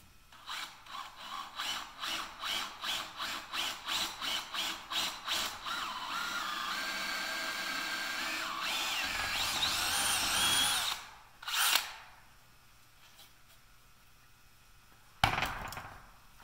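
Craftsman cordless hammer drill boring a twist bit into a clamped metal plate. The motor is pulsed on and off about three times a second for several seconds, then runs steadily with its whine stepping up in pitch, stops suddenly, and gives one more short burst. A single sharp knock comes near the end.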